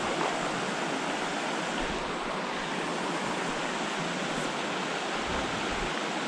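Steady rush of a small creek running high and fast, swollen by rain.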